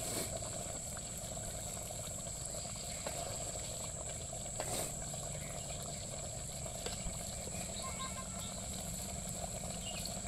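Egg curry simmering in a large cooking pot, a steady soft bubbling hiss, with a constant high-pitched whine above it.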